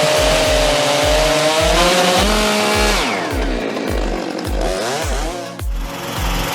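Two-stroke chainsaw running at high revs, its engine note dropping about three seconds in as the throttle eases off. Background music with a steady low beat plays underneath.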